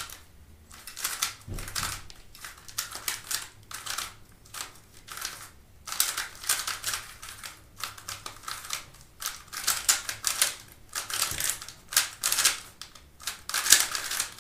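YJ GuanLong V3 3x3 speed cube being turned fast during a solve: rapid clicking and clacking of its plastic layers, in quick flurries broken by a few short pauses.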